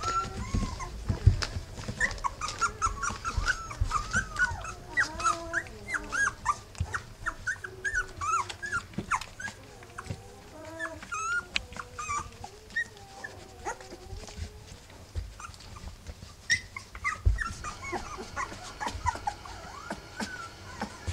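Three-week-old rough collie puppies squeaking and whimpering in a rapid run of short, high calls as they jostle and nurse, with some lower grunting calls and a few soft thumps.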